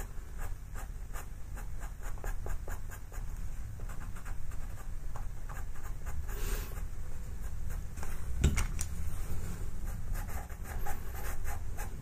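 Pastel pencil scratching on textured pastel paper in many short, quick strokes, over a low steady background hum.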